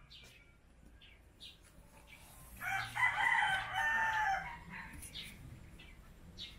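A rooster crows once, a single call of about two seconds near the middle.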